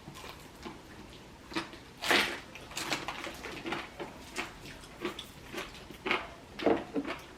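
People eating fried chicken: irregular short clicks, smacks and rustles of chewing and of handling the food.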